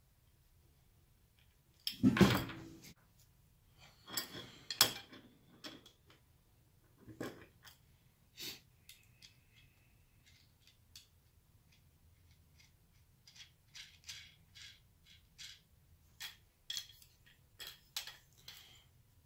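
Hand assembly of a plastic push block: a sharp knock about two seconds in, a clatter of plastic parts and small screws and washers, then a run of light clicks and taps near the end as a screwdriver works screws into the plastic handle.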